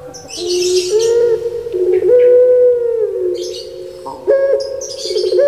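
Puter pelung, a long-voiced breed of ringneck dove, cooing in long drawn-out notes that step up and down in pitch, with a rolling warble about four seconds in. Short bursts of high hiss come near the start and again at the end.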